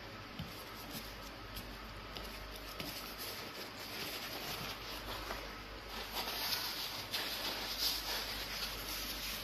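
Close-miked chewing and wet mouth sounds of a man eating yellow fufu and egusi soup by hand, with small smacks and clicks. Louder rustling comes in near the end as a paper tissue wipes his mouth.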